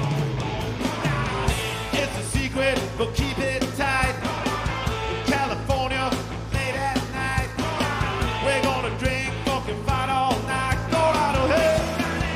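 Garage rock band playing live, loud and continuous, with singing over the guitars and drums.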